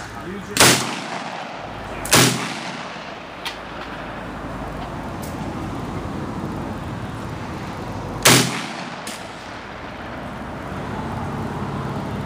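Polish AK-47 underfold rifle firing three single shots: two about a second and a half apart near the start, then a third about six seconds later. Each shot is a sharp crack with a short ring-out. Fainter sharp cracks are heard between them over a steady background hiss.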